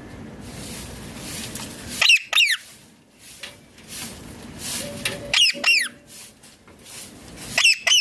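Indian ringneck parrot giving short, shrill falling screeches in three quick bursts of two or three calls each.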